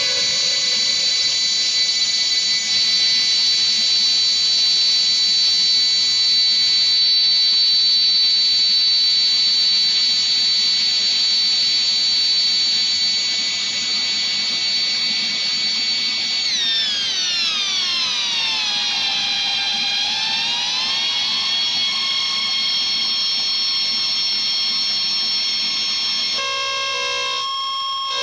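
Electronic harsh noise/ambient music: steady high whistling tones over a hiss. About two-thirds of the way through, a cluster of tones sweeps down and climbs back up, and near the end the sound switches to a lower, denser drone.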